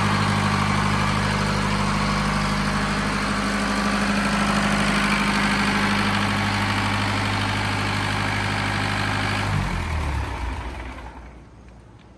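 Tata 407 four-cylinder diesel engine of a 25 kVA open generator set running steadily at a constant speed. About ten seconds in it shuts down, and its sound winds down and dies away over a second or two.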